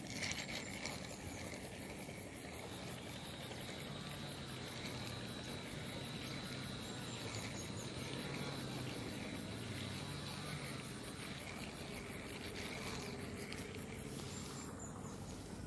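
Insects chirring steadily, with a high, fast, evenly repeating pulse.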